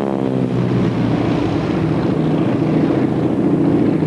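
North American T-6 Texan's Pratt & Whitney R-1340 radial engine and propeller droning steadily as the aircraft flies overhead.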